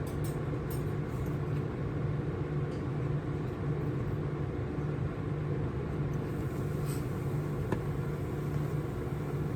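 Steady low droning hum of background machinery, with a few faint light clicks and taps near the start and once more about seven seconds in.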